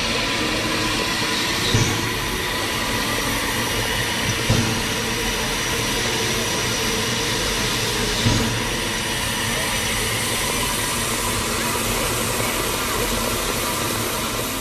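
Steam-driven air brake pump on a 1947 Hudswell Clarke tank engine running at a standstill: a steady hiss, with a heavy thud three times a few seconds apart.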